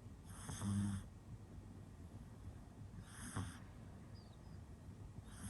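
Pug puppy snoring in its sleep: two snores about three seconds apart, the first louder with a low buzzing tone, and a third starting at the very end.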